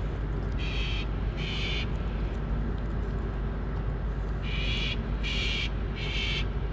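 A bird calling with short, high, repeated notes: two about a second in, then three more in quick succession later on, over a steady background hiss.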